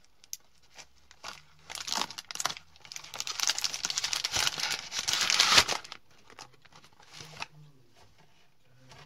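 Plastic packaging crinkling and rustling as a hand handles a cardboard chocolate box, loudest through the middle few seconds and tailing off into a few light clicks.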